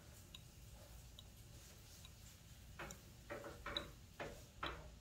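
Drops of essential oil falling from an upside-down dropper bottle into a small glass roller bottle: faint ticks, a quicker run of them from about three seconds in, roughly two a second.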